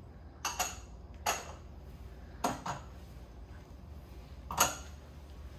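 Small ceramic spice bowls clinking against a blender jar as salt and pepper are tipped in: about six short, sharp clinks and taps, the loudest near the end.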